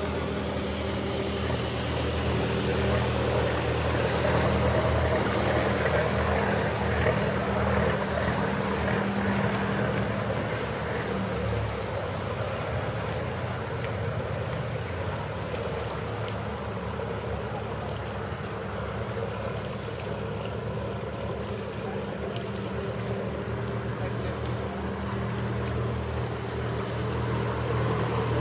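Inboard diesel engines of river cruisers running slowly at low revs. One fades after about ten seconds, and another grows louder near the end as a second cruiser edges up to the bridge.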